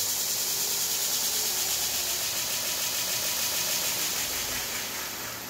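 Knife maker's belt grinder running on its electric motor and variable-speed inverter, a steady airy hiss with a thin high whine, slowly getting quieter. The freshly rewired inverter is driving the motor properly again.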